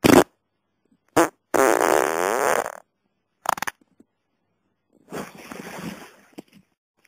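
A string of farts with dead silence between them: a short burst at the start, a brief one about a second in, then a long pitched, buzzing one lasting over a second. A short one follows, and near the end comes a longer, airier, hissing one.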